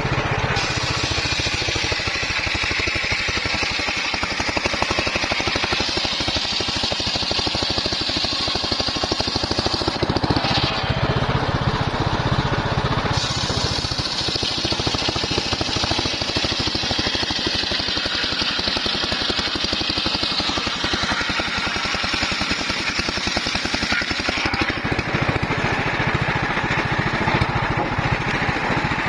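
Homemade band saw running steadily and cutting teak, with engine-like machine noise and a high sawing hiss that eases off briefly about a third of the way in and again near the end.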